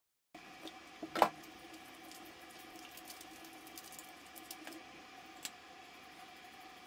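Quiet bathroom hum with soft handling sounds: hands rubbing in soap lather, a sharp knock about a second in, and a few small clicks.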